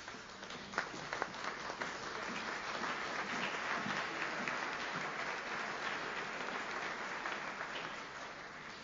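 Audience applauding: the clapping swells over the first couple of seconds, holds steady, and tapers off near the end.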